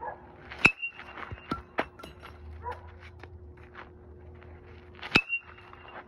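Metal baseball bat hitting pitched baseballs twice, about four and a half seconds apart, each a sharp ping with a short ringing tone. A few lighter clicks fall between the two hits.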